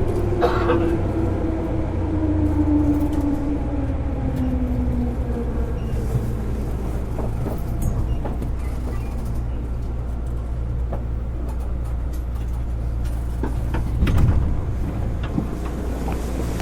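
JR 205-series EMU motor car with MT61 externally fanned traction motors, heard from inside the car. The motor whine falls steadily in pitch over the first five seconds as the train slows, then the car rolls on with a steady low rumble. There is a sharp click about half a second in and a thump about fourteen seconds in.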